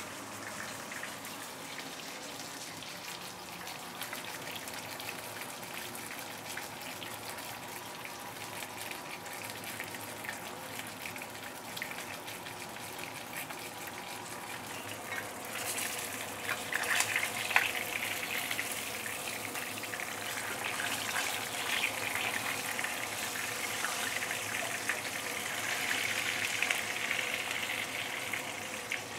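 Fish frying in hot oil in a non-stick stainless steel frying pan: the oil sizzles and crackles steadily as the nearly cooked fish crisps. The sizzling turns louder and busier a little past halfway.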